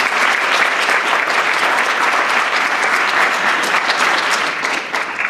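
Audience applauding: many people clapping at once, a dense steady patter that holds at full strength and begins to die away near the end.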